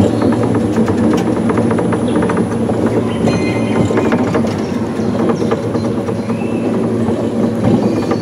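Small electrically powered monorail car running along its track: a steady drone with frequent rattles and clicks.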